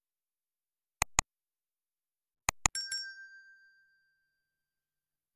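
Subscribe-button sound effect: two quick mouse clicks, then two more clicks and a notification bell ding that rings out and fades over about a second.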